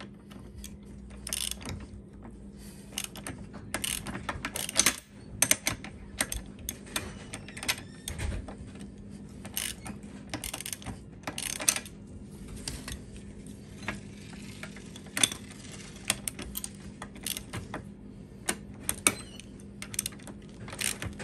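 Hand socket ratchet clicking in short irregular runs as a bolt is turned, with occasional clinks of steel tools.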